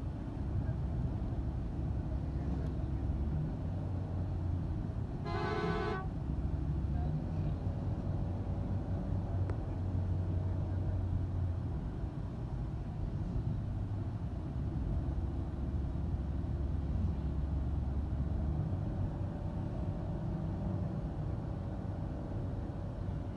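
Engine and road rumble of a moving vehicle heard from on board, steady throughout, with a single short horn blast about five seconds in.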